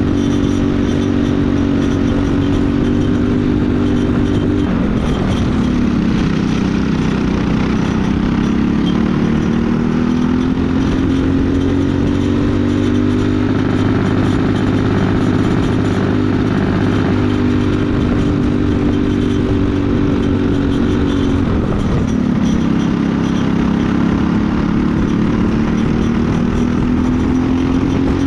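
Briggs & Stratton LO206 four-stroke single-cylinder kart engine racing at full throttle, loud and close, its note climbing steadily down the straights. The pitch drops sharply twice, about five seconds in and again a little past twenty seconds, as the driver lifts off for corners, then climbs again as it pulls back up through the revs.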